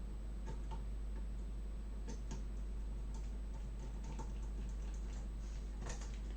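Faint, scattered small clicks and taps of a screwdriver and the plastic parts of an Xbox One controller being handled as its last screw is taken out, over a steady low hum.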